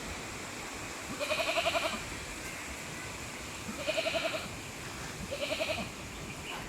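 An animal gives three wavering, quavering calls, each under a second long, over a steady background hiss.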